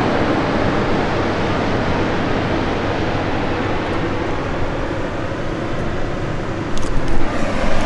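Steady rushing noise of surf and wind coming in through the open van door, easing off slightly. A few sharp knocks and a louder rush come in near the end.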